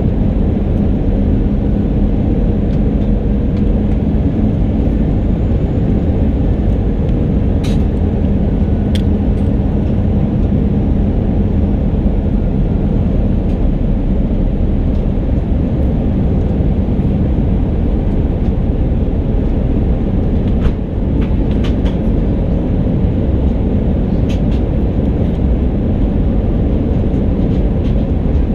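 Airbus A319 cabin noise heard inside the cabin from a window seat in flight on approach: a steady, loud rumble of the engines and airflow with a faint steady hum, plus a few light clicks and rattles.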